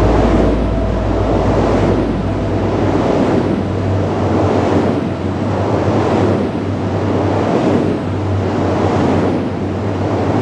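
Wind turbine blades whooshing: an airy swish that swells and fades about every second and a half as each blade sweeps past, over a steady low hum.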